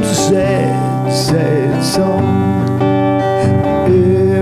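Acoustic guitar strummed with a man singing along. A steady electrical buzz runs underneath from a shorted guitar cord.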